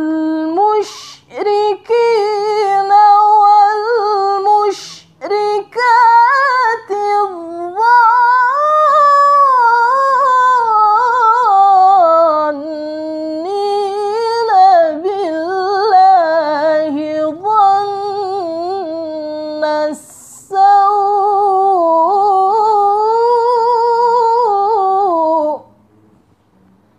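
A woman recites the Quran in the melodic tilawah style: long, ornamented phrases with a wavering pitch, broken by a few brief pauses. The recitation stops about a second before the end.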